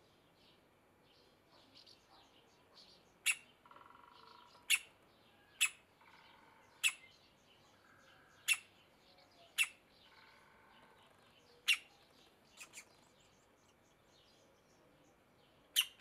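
Middle spotted woodpecker nestling calling from the nest hole, with sharp, short single calls at irregular intervals: about ten in all, one quick pair among them. Faint chirping sits underneath.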